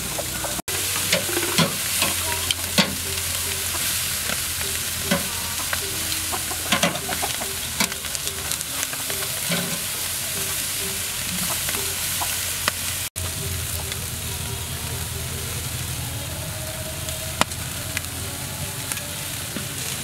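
Whole marinated quail sizzling on a hot metal grill grate, a steady frying hiss with scattered sharp pops and clicks.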